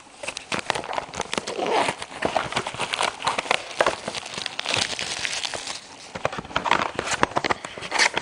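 Plastic shrink-wrap crinkling and crackling as it is pulled off a cardboard trading-card deck box, with small taps and scrapes of the box being handled.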